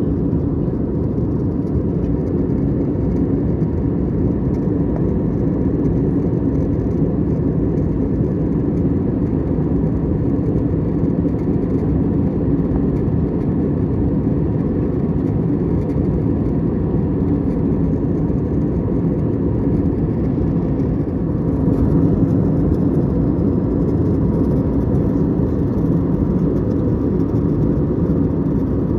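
Steady cabin noise of an Airbus A321neo in cruise flight: an even, low rumble of engines and rushing air heard from inside the passenger cabin.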